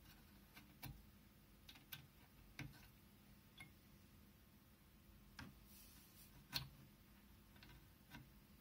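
Faint, irregular small clicks of plastic jumper caps being pulled off and pushed onto the pin headers of an Amiga 3000 motherboard, about seven in all, the loudest about six and a half seconds in.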